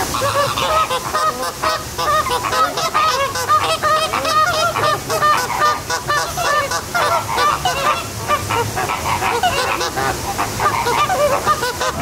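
A large flock of flamingos calling: a dense chorus of short, goose-like honks from many birds at once, overlapping several times a second.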